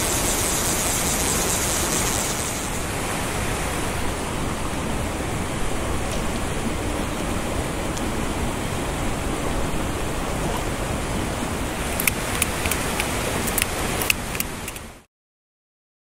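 Mountain stream water rushing steadily, with a few sharp clicks near the end before the sound cuts off.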